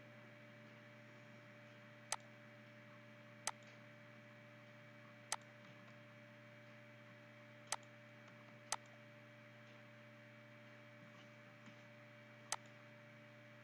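Computer mouse clicking six times, single sharp clicks a second or more apart, over a faint steady hum.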